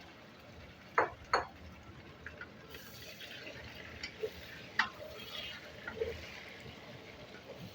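A metal spoon knocking against a cooking pot a few times while curry is stirred, over a light sizzle.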